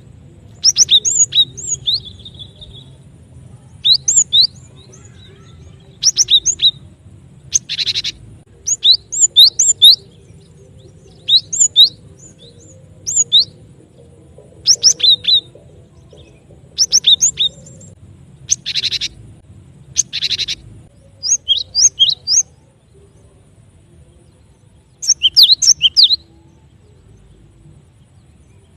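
Cinereous tit (gelatik batu) calls on a bird-lure recording. Clusters of short, sharp, high whistled notes come every second or two, broken by a few harsh buzzy calls about a quarter of the way in and again around two-thirds of the way through. Near the end there are longer gaps between clusters.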